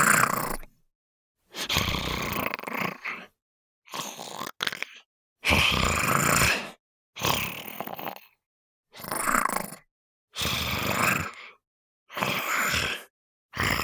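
Sound-effect snarls of a small monster: soft, breathy growling snarls in about eight separate bursts of roughly a second each, with short silences between them.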